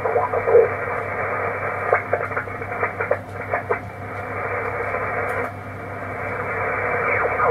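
Shortwave transceiver receiving single-sideband: steady band hiss with snatches of garbled sideband voices and short clicks, all squeezed into a narrow telephone-like passband, as the tuning dial is turned across a crowded contest band.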